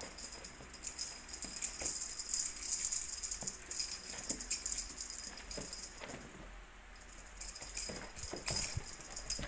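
Light jingling and rattling in irregular flurries, as of a cat toy being batted about during play, easing off briefly after about six seconds.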